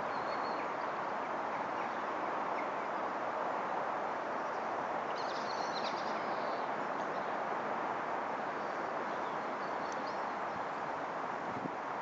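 Steady outdoor background noise, an even hiss with no clear source, with a few faint bird chirps, the clearest about five to six and a half seconds in.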